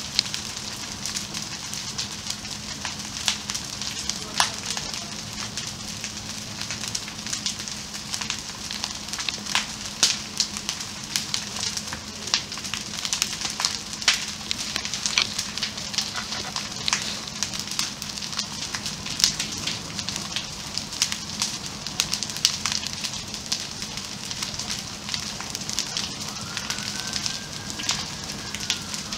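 A burning ATV crackling and hissing, with frequent sharp pops and snaps as the flames eat through its plastic and tyres.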